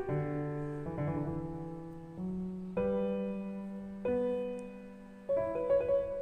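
Background piano music: single notes that ring and fade, about one a second, quickening into several faster notes near the end.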